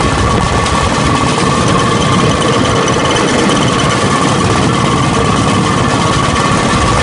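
Engine of an open motorized rail inspection car (a zorra) running steadily as it travels along the track: a loud, continuous rapid chatter with a steady high whine over it.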